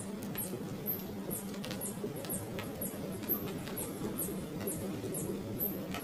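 Nestling birds peeping: a steady run of short, very high chirps, each falling in pitch, about three a second, over a low steady hum.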